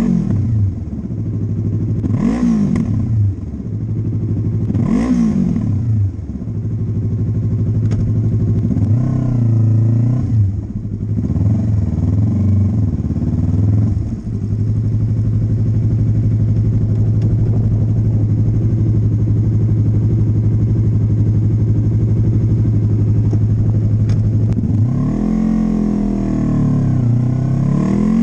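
Yamaha MT-03's parallel-twin engine through an Arrow Pro Race slip-on exhaust, revved in several short throttle blips, then idling steadily for about ten seconds before more quick revs near the end.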